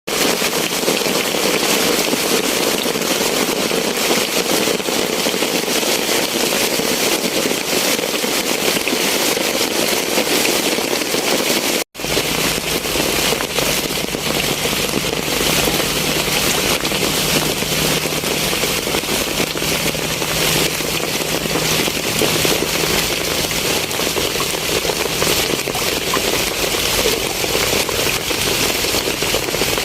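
Heavy rain pouring steadily, a dense crackling patter of drops. The sound drops out for a moment about 12 s in; after that a faint low hum runs under the rain for a while.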